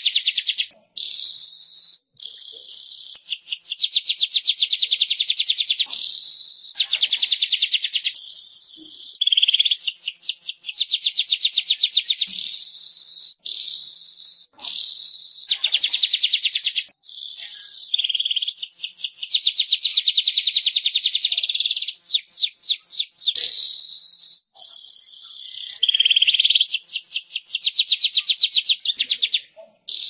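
Weaver (manyar) song: high phrases a second or two long, each a rapid ticking chatter running into a dry hissing buzz, repeated over and over with short gaps between.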